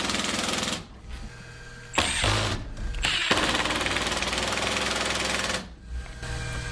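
A cordless impact driver hammers screws into a steel workbench top in bursts. The first burst stops about a second in, a short one follows about two seconds in, and a longer run lasts from about three seconds in until near the end.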